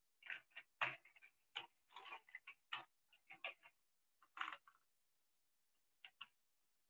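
A run of short, irregular clicks and taps, about fifteen of them in quick uneven succession, falling quiet for about a second before two more near the end.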